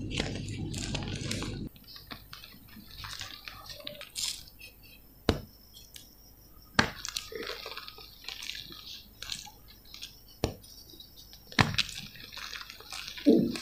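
Hands crushing and snapping blocks of reformed gym chalk: dry crumbling and crackling with about five sharp snaps as pieces break apart, the loudest near the end.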